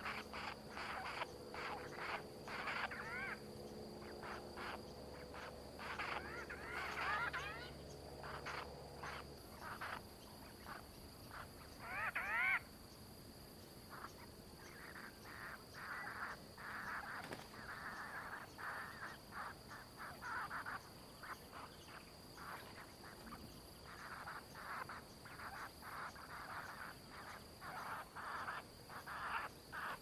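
Outdoor animal calls, probably birds: short harsh calls repeat in runs, sometimes several a second, with one louder rising call about twelve seconds in. A steady high-pitched whine runs underneath, and a low hum stops about a third of the way through.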